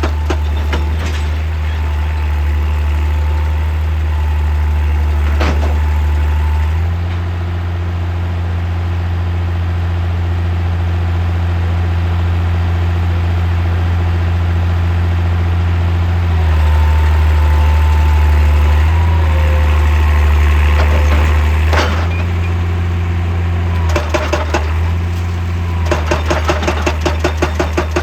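Excavator diesel engine running steadily, its note shifting a few times, with the hydraulic rock breaker hammering rapidly against rock at the very start and again near the end, and a few single knocks between.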